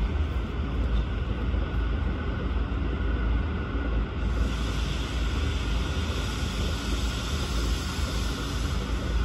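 Steam locomotive venting steam: a steady hiss starts abruptly about four seconds in and holds, over a continuous low rumble.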